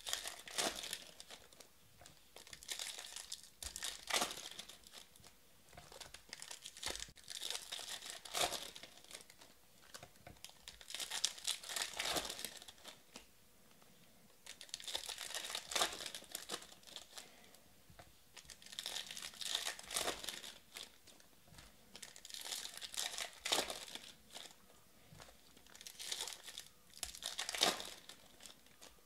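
Foil wrappers of Topps Finest baseball card packs crinkling and tearing as they are ripped open by hand, in bursts every few seconds, with cards handled and set down onto a stack in between.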